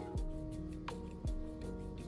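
Background music with a slow beat: deep kick drum and a sharp snare alternating under sustained melodic tones.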